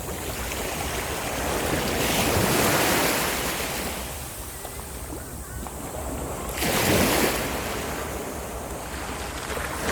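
Sea waves breaking on the shore in slow surges, a broad swell about two seconds in and a sharper, louder break near seven seconds.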